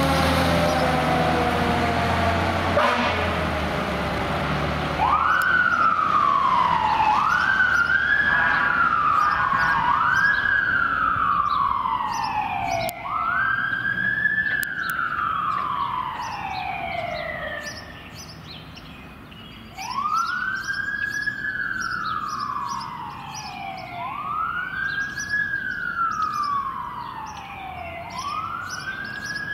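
Fire engine responding with its siren on a wail: each cycle sweeps up quickly and glides down over about two seconds, repeating and growing fainter as the truck drives away. The truck's engine rumbles loudly, with steady horn-like tones, for the first few seconds before the siren starts.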